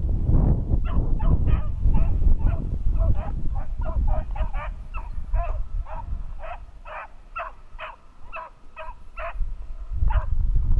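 Pack of beagles baying on a rabbit's trail, a running chorus of short bawling yelps about two or three a second. A low rumbling noise lies under the first few seconds and returns near the end.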